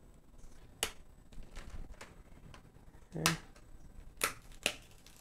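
Plastic display bezel of a Dell G5 5590 laptop being pried off by hand, its retaining clips snapping loose in several sharp clicks. The loudest click comes about three seconds in and two more follow close together near the end.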